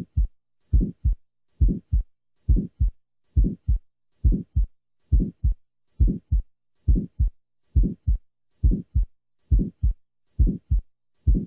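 Heart sounds through a stethoscope: a steady rhythm of paired beats, about 69 a minute, each first heart sound drawn out by a short early systolic murmur that stops well before the second sound. This is the murmur of a small ventricular septal defect in the muscular septum.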